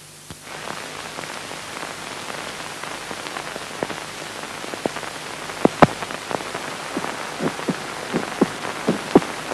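A human heartbeat picked up through a stethoscope and amplified, heard as paired beats roughly once a second over a steady hiss. The beats are faint at first and come through sharper from about halfway.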